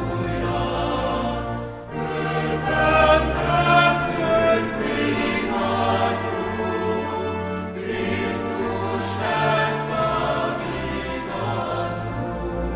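Chamber choir singing a sacred Easter anthem over sustained organ chords, with long low organ notes holding beneath the voices and short sibilant consonants cutting through now and then.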